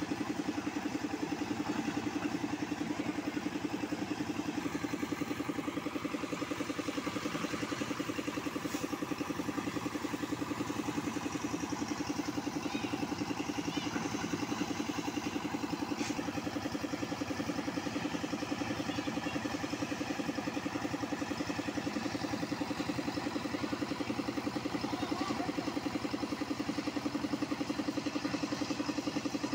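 Portable concrete mixer's small engine running steadily with a fast, even beat while the drum turns.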